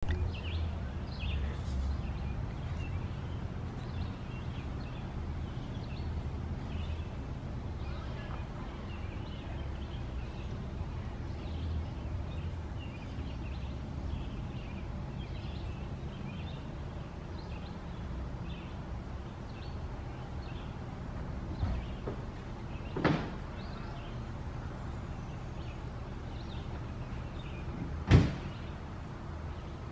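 Outdoor ambience: small birds chirping repeatedly over a steady low rumble, with two sharp knocks about five seconds apart near the end. No siren tone sounds.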